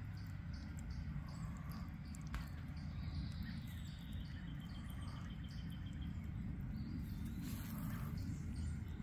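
Cricket chirping steadily, about three high chirps a second, with a faint thin trill in the middle and a low rumble underneath. A short hiss comes near the end.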